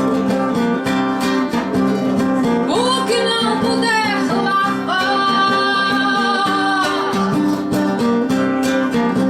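Acoustic guitar strumming a song in a steady rhythm, with a melody line that rises and is held in long notes between about three and seven seconds in.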